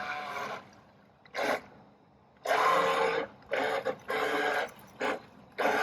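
Radio-controlled toy boat's small electric motor whirring in short bursts, starting and stopping about five times after a steady run fades out.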